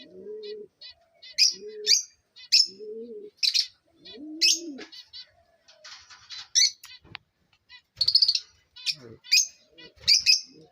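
Caged lovebirds chirping: many short, sharp, shrill calls overlapping throughout, with softer lower calls in between.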